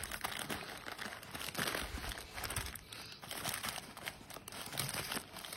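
A new keyboard's packaging being opened by hand: irregular crinkling and rustling of wrapping, with some tearing.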